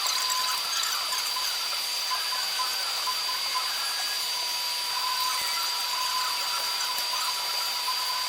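Laser back-glass removal machine running, a steady high-pitched whine with a lower hum over a fine crackling hiss as the laser works over the back glass of an iPhone 14 Pro.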